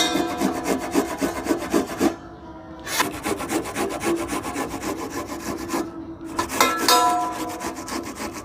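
A red onion being grated on a handheld steel grater: rapid rasping strokes in three runs with short pauses between, the grater's end resting in a steel pan that gives a metallic ring.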